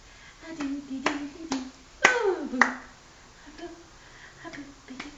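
A person clapping their hands, several sharp irregular claps with the loudest about two seconds in, mixed with short playful vocal sounds and one falling 'whooo'-like voice glide, made to get a baby to laugh.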